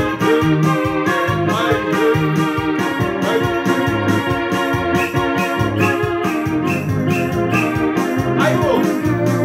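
Yamaha PSR-S670 arranger keyboard playing an upbeat tune in held, organ-like chords over a bass line and a steady beat of about three strokes a second.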